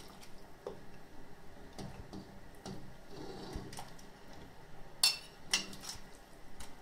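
Metal spoon clinking twice against dishes, about half a second apart, as pieces of fish are spooned from a plate into a pot of broth, with a few faint taps before.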